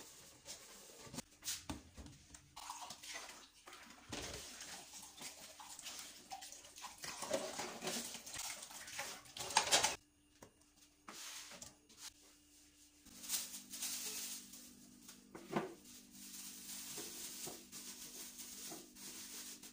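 Hand-washing dishes in a stainless steel sink: steel bowls and pots clinking and knocking, with scrubbing and scattered clatter.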